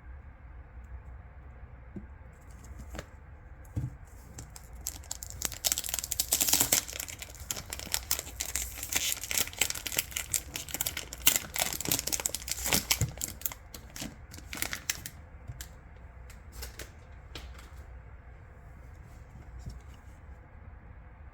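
Packaging being torn and crinkled open by hand: a dense run of crackling and tearing that starts about five seconds in and dies away about ten seconds later, with a few faint rustles and ticks before and after.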